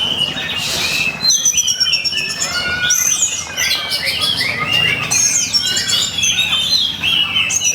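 Oriental magpie-robin singing a loud, continuous song of rapid varied whistles, chirps and sweeping notes: the aggressive, rivalry-style song used to provoke other magpie-robins.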